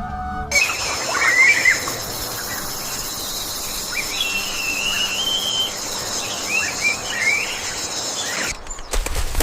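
Forest ambience: a steady high insect drone with short chirping, squeaky calls over it. A flute is heard for the first half second, and the ambience cuts off suddenly near the end.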